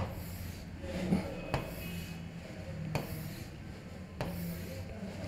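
A marker rubbing across a writing board in several short strokes, as letters are written and lines drawn, with a few light taps of the pen tip.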